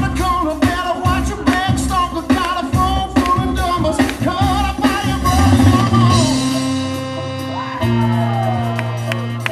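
DJ's music over the sound system: a drum beat with singing, giving way about six seconds in to held notes without the beat, with a long falling glide near the end.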